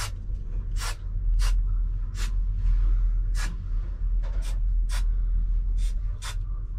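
Short, sharp hissing or scratching bursts, about ten of them at irregular half-second to one-second gaps, over a steady low hum, as the windlass solenoid's wiring terminals are covered against corrosion.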